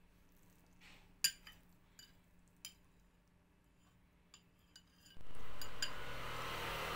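A metal spoon clinking and scraping against a ceramic bowl: a handful of separate sharp clinks, the loudest about a second in. About five seconds in, a steady rushing noise starts abruptly and carries on.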